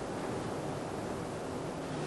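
Steady hiss from an old 1980s videotape soundtrack, with a faint low hum under it; no distinct sword or footwork sounds stand out.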